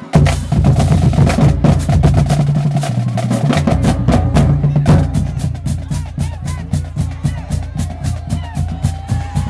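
Marching band drumline playing a cadence: rapid snare drum strokes over pitched bass drums, starting abruptly at full volume. A rising tone sounds near the end.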